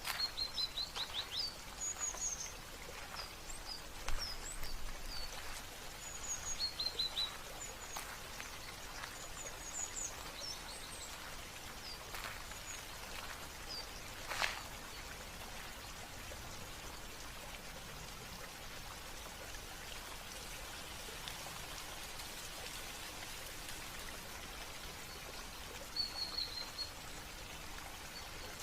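Small songbirds chirping in short high trills and chips, busiest in the first half and again near the end, over a steady trickle of running water.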